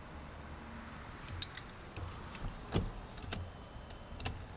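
Scattered light metallic clicks and knocks of tools and bolts being handled while working on a car seat's mounting, with one firmer knock near the middle.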